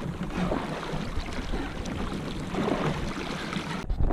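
River water moving and splashing beside an anchored drift boat, with wind rumbling on the microphone. The sound drops out abruptly near the end.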